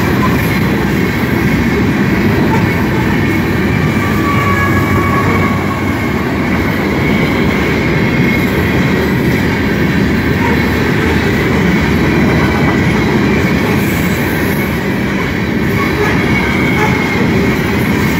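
Freight train of covered hopper cars rolling steadily past, its steel wheels rumbling on the rails. Brief wheel squeals come in a few seconds in and again near the end.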